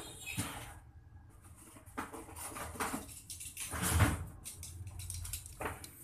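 Small hard objects being handled on a tabletop: scattered clinks, scrapes and knocks, with one louder knock about four seconds in.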